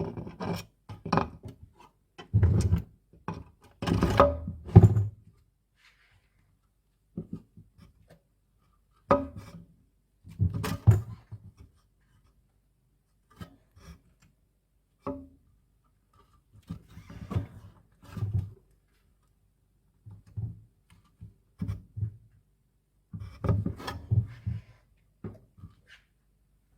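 Fan parts being handled, giving irregular knocks and thunks with short pauses between them.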